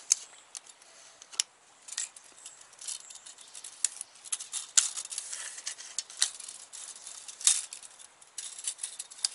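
Steel tape measure being pulled out and handled: irregular sharp clicks and light metallic rattling.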